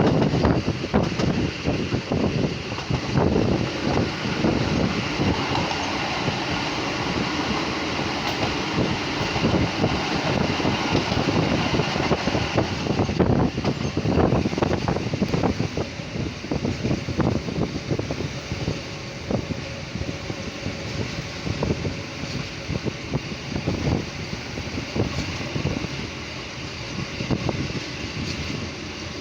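Ride noise of a 1990s ITIN ADe23 diesel railcar on 950 mm narrow-gauge track, with a continuous rumble and rattle and frequent short knocks from the wheels on the rails. It grows somewhat quieter in the second half.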